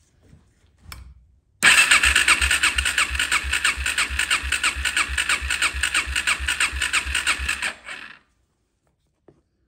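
Electric starter cranking a 2007 Suzuki LT-Z400's single-cylinder four-stroke engine with the spark plug out, throttle open and a compression gauge in the plug hole: a compression-test crank. It starts about a second and a half in as an even, fast chugging rhythm, runs about six seconds without the engine firing, and stops abruptly.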